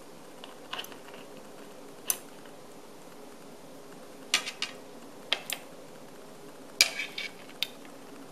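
Metal tongs clinking against a ceramic plate: about a dozen sharp, irregular clinks, some in quick clusters, the loudest near the end, over a faint steady hum.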